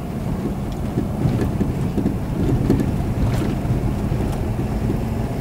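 Ford pickup truck driving: a steady low rumble of engine and road noise inside the cab, with wind buffeting the microphone.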